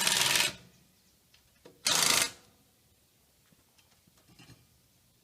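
A power drill-driver runs in two short bursts about two seconds apart, backing out two screws to loosen a frame piece.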